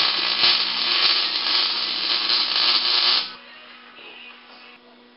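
Angle grinder grinding on steel, a harsh steady noise for about three seconds that then cuts off.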